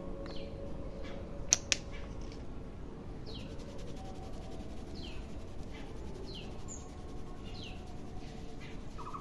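A small bird calling repeatedly, short falling chirps every second or two, over steady outdoor background noise. Two sharp clicks come close together about a second and a half in.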